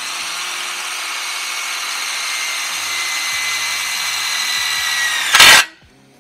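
Cordless drill running steadily as it bores into steel, its whine sagging slightly in pitch under load toward the end, then a brief very loud grinding burst just before it stops.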